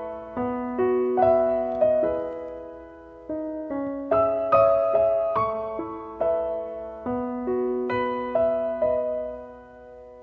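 Background piano music: single notes struck about twice a second and left to ring, with a short lull or two where a note is held.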